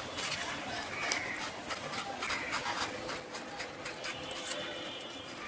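A kitchen knife scraping the skin off a pointed gourd (potol): a run of quick, irregular scraping strokes as the blade is drawn along the gourd.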